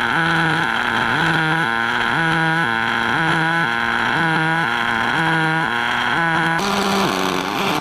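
Background music: a low, repeating riff that steps between two notes about once a second, changing near the end and cutting off abruptly.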